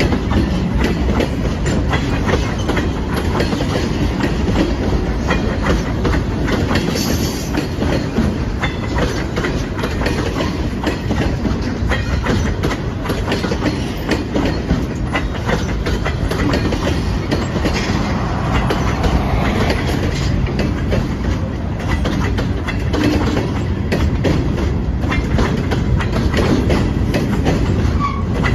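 A train rolling by, its cars clattering steadily with continuous clicking of wheels over the rails.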